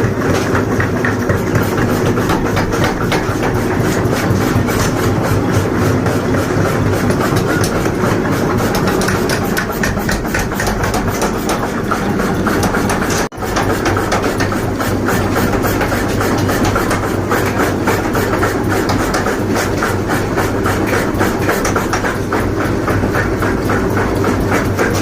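A forging machine running steadily, a constant hum under a fast, continuous rattling clatter, which breaks off for an instant about halfway through.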